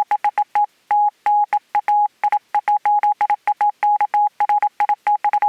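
Morse code sent as a steady single-pitch beep, keyed quickly in a continuous run of short and long pulses (dots and dashes). Each beep starts and stops with a slight click.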